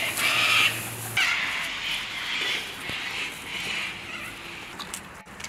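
Mini groodle puppies giving high-pitched yips and whines, a string of short calls that fade out near the end.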